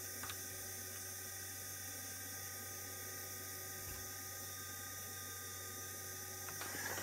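ARC-5 receiver's dynamotor running steadily under load, a continuous whir with a steady hum and hiss. A light click comes about a quarter second in.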